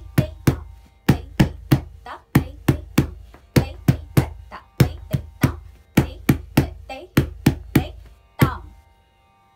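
Bare feet stamping flat on a wooden floor in the Bharatanatyam tatta adavu, in groups of three stamps with a short pause between groups, about three stamps a second. It ends with one last single stamp near the end.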